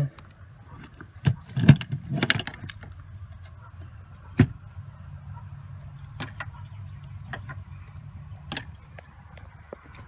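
Scattered clicks, knocks and light metallic clatter of hands and a flat-blade screwdriver working at a seat belt retractor and its plastic wiring connector, the sharpest under two seconds in and again about four and a half seconds in, over a steady low hum.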